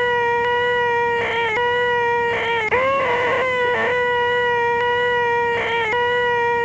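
A man's voice holding a loud, steady, high-pitched nasal 'eeeeehhh' screech, the 'most annoying sound in the world', breaking off briefly every second or so and starting again.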